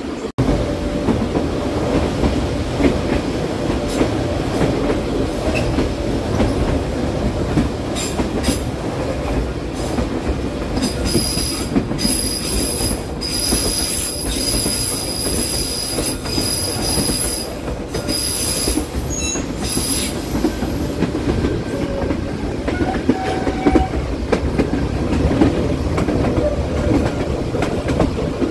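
Passenger train running on the rails with a steady rumble and wheel noise. From about eleven to twenty seconds in, high-pitched wheel squeal comes and goes as the wheels grind around curves at the foot of the Hải Vân mountain pass.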